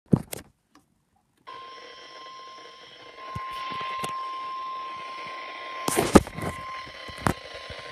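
Weather radio's steady single-pitch warning alert tone near 1 kHz over static hiss, the NOAA Weather Radio 1050 Hz alarm that signals an emergency alert is about to be broadcast. It starts about a second and a half in, after a couple of clicks, and a few sharp clicks sound near the end.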